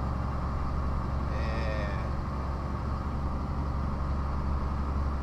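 Scania 113 truck's six-cylinder turbo diesel running steadily under load on a climb, heard from inside the cab as a low drone. A brief higher-pitched tone sounds over it about a second and a half in.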